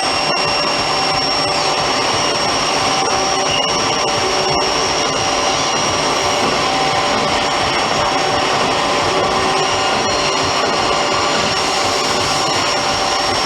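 CNC lathe running with a slotting tool cutting a keyway: a steady machine whir with a constant high whine from the drive.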